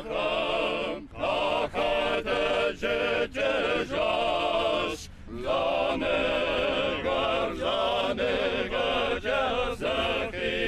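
A choir singing a slow chant-like song, its held notes wavering with vibrato in phrases separated by short breaths, with a longer pause about five seconds in.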